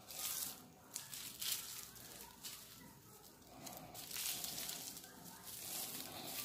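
Palm rolling flat plastic raffia strands against bare skin to twist them into cord: a run of irregular brushing, rustling swishes.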